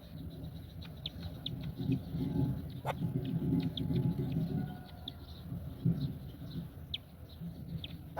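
Short, high bird chirps repeating irregularly over a low rumbling noise, with one sharp click about three seconds in.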